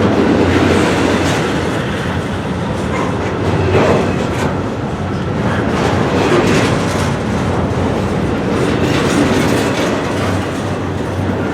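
Loaded freight cars of a CSX train rolling past, a steady rumble with the wheels clicking and clacking over the rails.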